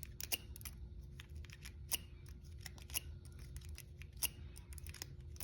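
Lock pick working the pins of a laminated steel padlock, making light metallic clicks and scrapes. A sharper click comes roughly once a second.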